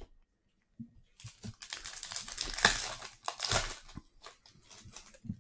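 Trading card pack wrapper crinkling as it is handled and torn open, followed by a few light rustles and clicks.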